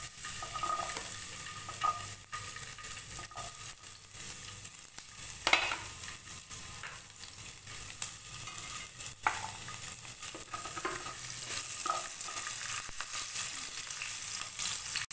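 Diced green capsicum sizzling as it fries in hot oil in a pan, with a spatula stirring it and knocking against the pan now and then.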